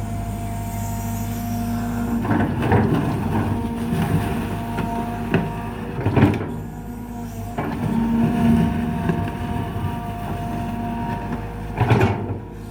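Kobelco SK120 excavator's diesel engine running steadily while its hydraulics work, its note rising and falling with the load. Several knocks and clatters come through it, the loudest about halfway through and near the end.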